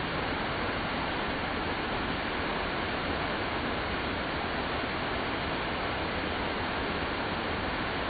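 A steady, even rushing noise with no change in level or pitch throughout.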